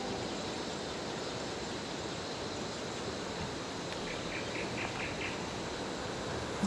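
Outdoor river and forest ambience: a steady even hiss with a faint high insect drone, and a quick run of about five chirps about four seconds in.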